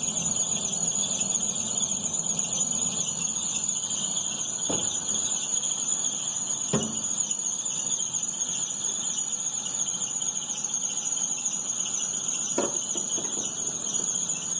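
Steady high-pitched squeal from a 2011 Astra's poly-V accessory belt drive with the engine running, with a few faint clicks. The belt is new and the crankshaft pulley has been checked, and the noise comes with the air conditioning on, so the owner suspects the belt tensioner.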